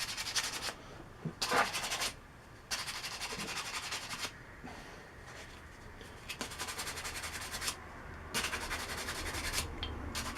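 Hand sanding: several bursts of quick rubbing strokes with short pauses between them.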